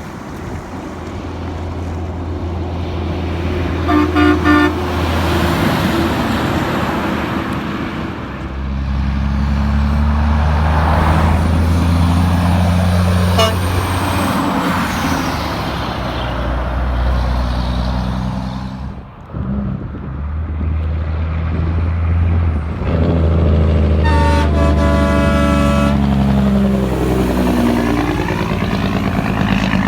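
Semi-trucks passing, their diesel engines running. One truck sounds a short horn blast about four seconds in, and another blows a multi-tone horn for a couple of seconds later on, its pitch falling as it goes by.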